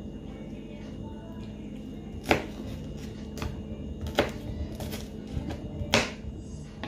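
Kitchen knife chopping green bell pepper on a cutting board: about five separate knocks of the blade, roughly a second apart, the loudest about two seconds in and near the end.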